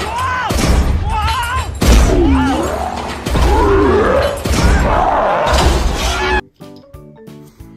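Animated monster-truck cartoon soundtrack: repeated deep thuds and crashes under music, with a character's gliding shouts, including a "Whoa!" about five seconds in. It cuts off abruptly about six and a half seconds in to quieter music.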